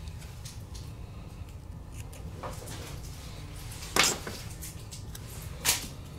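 Kapton tape being pulled and pressed by hand over a phone's camera lenses: three short, sharp handling noises about two and a half, four and near six seconds in, the one at four seconds loudest, over a steady low hum.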